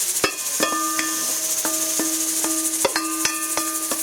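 A metal spoon knocking repeatedly against a metal cooking vessel, about three sharp clinks a second, each leaving a ringing tone, as the boiled lamb brains are added to the pan. A steady frying sizzle runs underneath.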